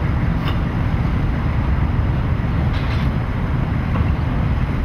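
A steady low rumble, with a couple of faint knocks about half a second and three seconds in.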